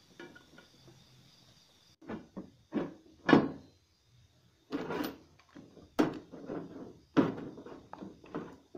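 Steel pipe and angle-iron pieces being handled and set against each other: a series of irregular metal knocks and clunks, beginning about two seconds in.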